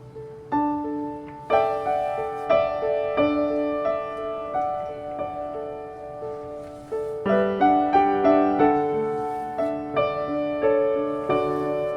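Soft background piano music, slow notes struck one after another and left to ring.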